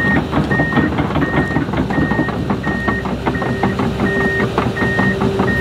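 Komatsu excavator running, its warning alarm beeping steadily about once every 0.7 seconds as the machine works. A steady higher whine joins about halfway through.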